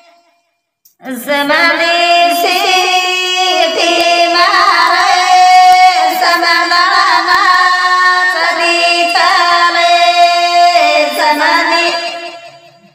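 A woman's voice singing a Banjara (Lamani) wedding song, a vaya geet, over a steady drone accompaniment. The singing starts about a second in and fades out near the end.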